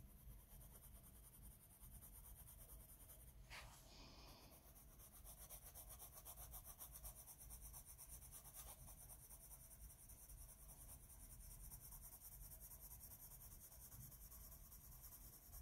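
Faint scratching of a soft coloured pencil worked over paper in many short, light strokes, with one small click about three and a half seconds in.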